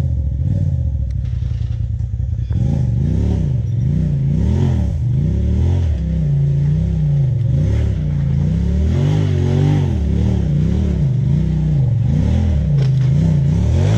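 Side-by-side UTV engine running, then from about two and a half seconds in revved up and down in repeated throttle blips, a little more than one a second, as it works its way up a rock climb.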